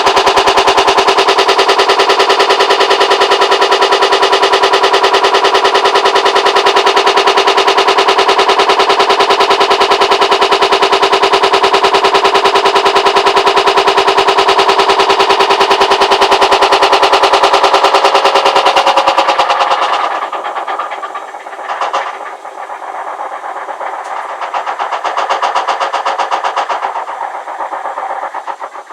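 Hotpoint WMAL641 washing machine making a loud, fast rattling noise over a steady hum. The noise cuts off sharply about twenty seconds in, leaving a quieter, uneven running sound with a single click. The cause of the noise is unknown to the owner.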